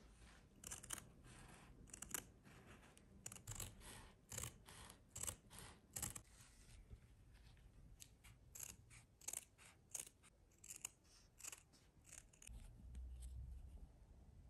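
Scissors snipping through a sheet of felt: a run of short, sharp cuts at irregular intervals that stops about twelve seconds in, followed by a low rumble near the end.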